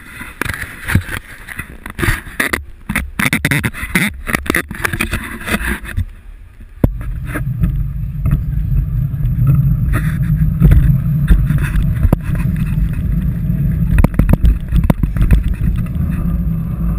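Bicycle ride through city streets recorded on a handlebar-mounted action camera. A run of knocks and rattles from the bike and mount gives way, about 7 seconds in, to a loud, steady low rumble of wind and road noise on the microphone.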